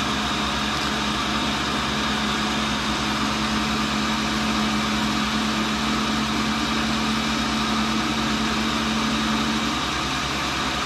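Tool and cutter grinder running idle with a steady mechanical hum, left on to settle in before grinding. One steady tone in the hum drops out near the end.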